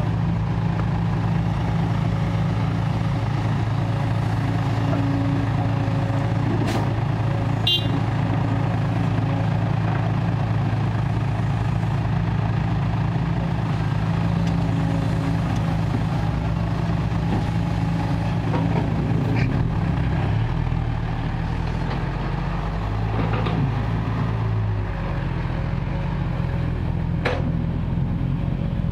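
Diesel engine of a Kobelco SK140 excavator running steadily while it digs and loads soil, its note shifting about twenty seconds in, with a few short metallic knocks.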